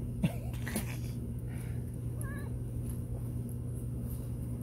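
A domestic cat gives one brief, faint meow about two seconds in, over a steady low hum, with a short tap just under a second in.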